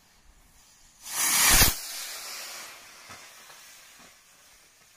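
Mars Attacks firework rocket launching: a sudden loud rushing hiss about a second in, lasting under a second, then a fainter hiss fading away over the next couple of seconds as the rocket climbs.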